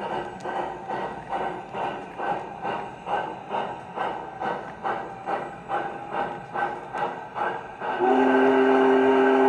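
O-gauge model steam locomotive's sound system playing a steady chuff, about three beats a second, then a chime steam whistle blowing loud and steady from about eight seconds in.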